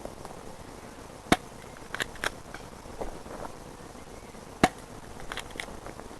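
Airsoft guns firing: two loud, sharp snaps about three seconds apart, with fainter pops in between and again near the end.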